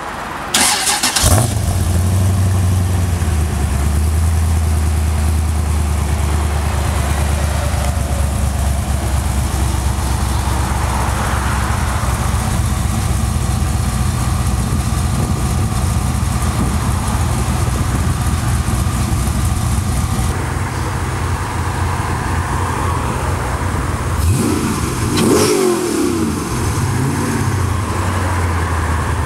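Ultima GTR's LS7 V8 starting with a sharp burst about a second in, then idling steadily with a deep, even note. Near the end it is revved quickly, pitch rising and falling, before settling back to idle.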